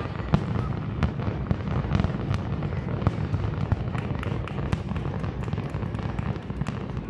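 Aerial fireworks going off: a continuous low booming of shell bursts with many sharp cracks and crackles, several a second.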